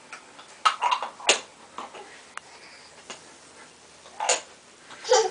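Plastic toy tea-set pieces clacking and knocking together on a table: a string of separate light knocks, roughly one every half-second to second.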